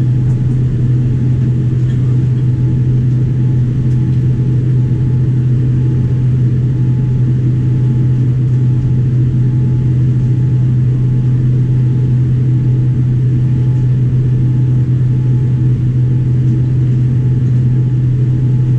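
Steady, unchanging low drone inside the cabin of a Boeing 787-9 standing on the ground, the hum of the aircraft's systems heard from a window seat over the wing.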